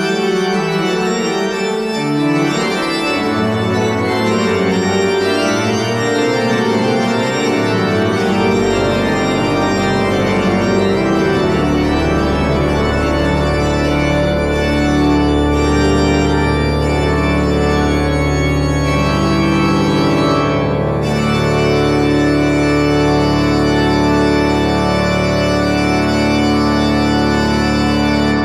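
Church pipe organ playing the closing bars of a piece in full, sustained chords. Deep pedal bass notes come in after about eight seconds and hold under the chords, and the final chord is released right at the end, leaving a reverberant tail.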